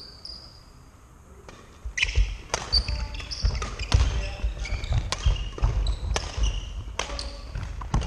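Badminton being played on a wooden sports-hall floor: sharp racket-on-shuttlecock hits, shoes squeaking and feet thudding as players move. The play is sparse for the first couple of seconds and then becomes a busy, continuous run of hits, squeaks and footfalls.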